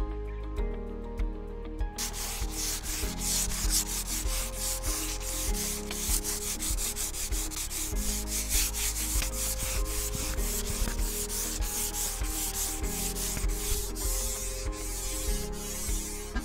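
A sanding sponge rubbed by hand over the finished wooden top of a nightstand, in quick, even back-and-forth scratching strokes, several a second, starting about two seconds in.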